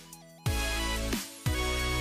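Background music: a track with sustained pitched notes over deep bass notes that slide down in pitch, about one a second. The music briefly drops away at the very start.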